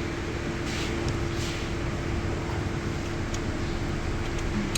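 Steady machine hum with a constant low tone, with two short hisses about a second in.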